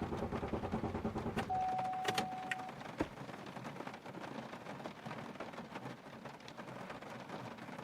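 Steady rain falling, with a single steady electronic beep lasting about a second and a few sharp clicks near the start.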